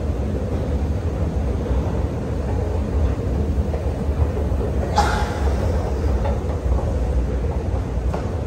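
Train station ambience: a steady low rumble with a faint steady hum, and one sharp click about five seconds in.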